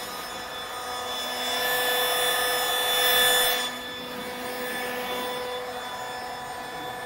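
Leaf blower running with a steady whine, pushed harder for about two seconds in the middle, then eased back.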